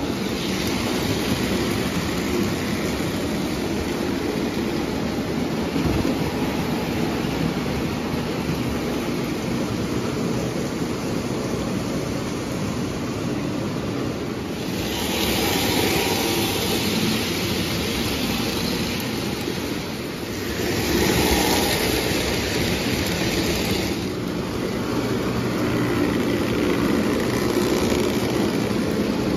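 Lionel O-gauge tinplate model trains running on three-rail track, a steady rolling rumble from the wheels and motor. Two stretches of louder hiss come about halfway and about two-thirds of the way in.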